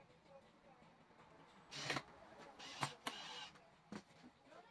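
Cordless drill running in short bursts as it drives a screw into a wooden block, once about two seconds in and again around three seconds in.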